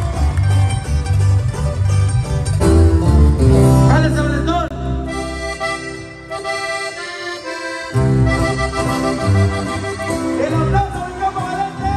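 A Hohner diatonic button accordion playing live, with a strummed twelve-string guitar behind it. About halfway through, the bass drops out for a couple of seconds, leaving the accordion and guitar on their own.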